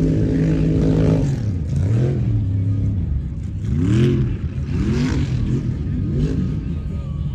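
Mega mud truck's engine held at high revs, dropping off about a second in, then blipped in a series of short revs that each rise and fall. The truck has broken its rear axle.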